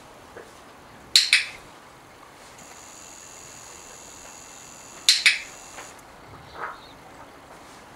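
Handheld dog-training clicker sounding twice, about a second in and again about five seconds in, each a sharp two-part click-clack, marking the Labrador's chin resting on the dice.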